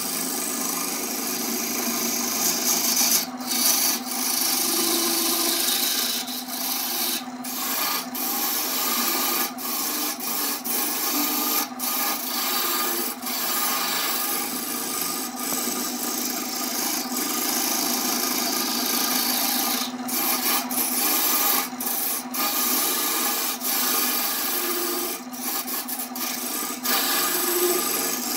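Turning tool cutting a spinning glued-up wooden vase blank on a wood lathe: a steady scraping hiss of shavings peeling off, broken now and then by brief gaps.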